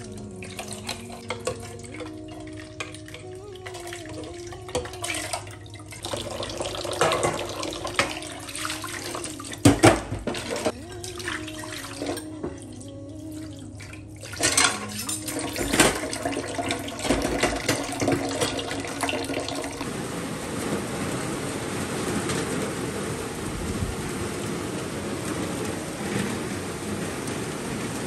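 Hand-washing dishes in a stainless steel sink: running and splashing tap water, with clinks of a pot, cutlery and a plastic bottle. From about twenty seconds in, steady heavy rain takes over.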